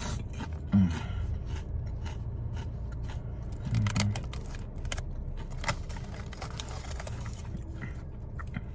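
Person chewing Ruffles ridged potato chips: scattered faint crunches over a steady low hum, with two brief low voice sounds about a second in and about four seconds in.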